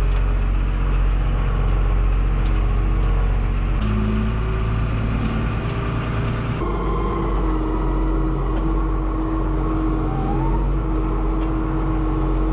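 Farm tractor's diesel engine running steadily, heard from inside the cab as it drives, with its pitch stepping up about four seconds in and changing again a couple of seconds later.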